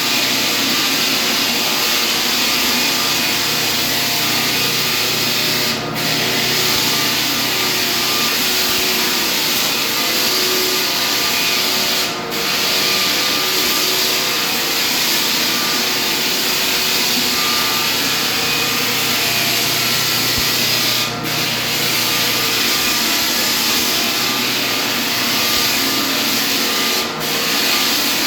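Floor sanding machine running steadily on a hardwood floor, its sound dipping briefly four times.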